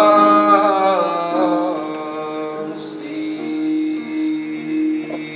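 A male voice holds the final sung note of a slow ballad over a sustained keyboard chord, then drops out about a second and a half in, leaving the chord ringing and fading.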